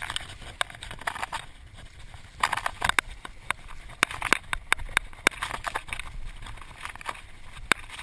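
Mountain bike running over a bumpy dirt trail: irregular clicks and knocks as the chain and frame rattle over the ground, over a steady low rumble of tyres and wind on the microphone.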